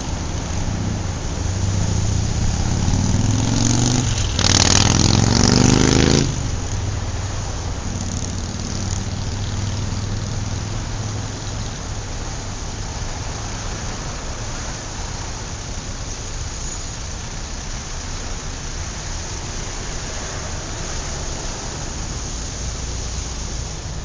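City road traffic: a steady wash of passing vehicles and engine hum. About three seconds in, one vehicle comes close, its engine note rising; the loud pass ends abruptly about six seconds in, and the traffic noise then runs on.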